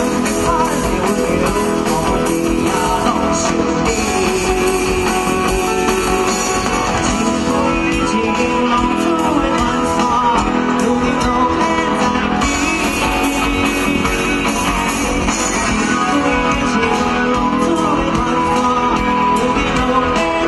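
Live band music with guitar, keyboard and drums playing steadily.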